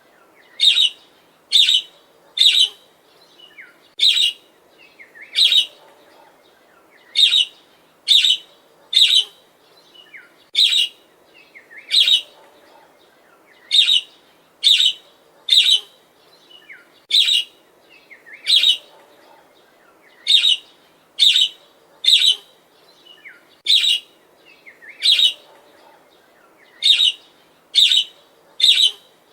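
Budgerigar chirping: short, sharp, high chirps repeated one to two a second, often coming in pairs or threes.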